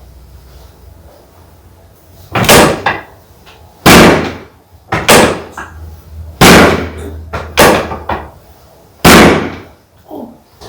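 A series of about seven loud, sharp thumps at irregular intervals of roughly a second, each dying away over about half a second.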